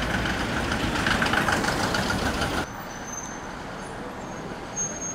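Street traffic: a motor vehicle passing close by, heard as a steady rush of engine and road noise that cuts off suddenly about two and a half seconds in, leaving a quieter outdoor background with a few faint high tones.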